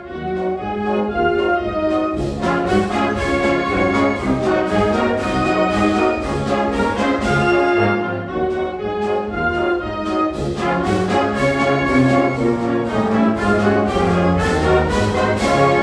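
High school symphonic band playing, brass prominent, with percussion striking a steady beat.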